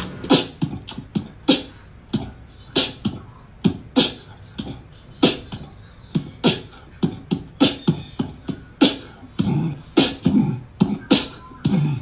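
Beatbox-style vocal percussion: sharp mouth-made kicks, snares and clicks, two or three a second in an uneven groove.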